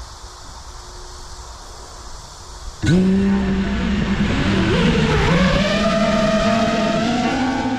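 Brushless motors of a 5-inch FPV quadcopter spinning up suddenly about three seconds in, a loud whine whose pitch climbs steadily as the throttle rises. Before that there is only a quieter steady hiss.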